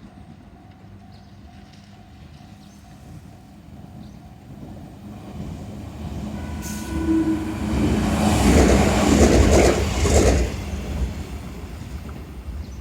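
Shizuoka Railway A3000-series electric train approaching and passing close by, its wheels running over the rails. It is loudest about 8 to 10 seconds in, then fades as it draws away.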